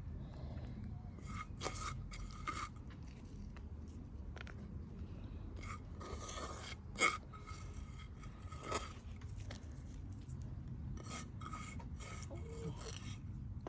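Hands scraping and rustling in a planting pot, short scrapes on and off, with one sharp knock about seven seconds in, over a steady low rumble.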